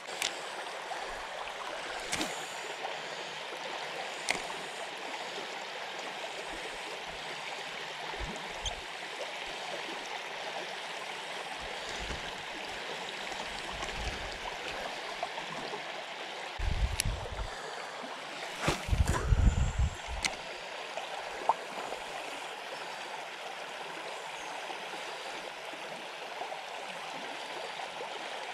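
River current rushing steadily over shallow rocks. A few low thumps stand out about two-thirds of the way through.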